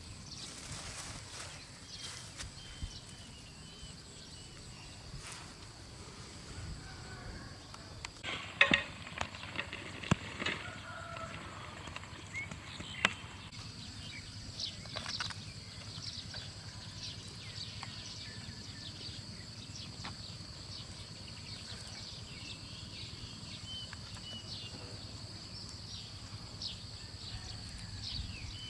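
Outdoor ambience: a steady high-pitched insect drone with short bird chirps, broken by scattered sharp knocks and clicks, the loudest a cluster about nine to thirteen seconds in.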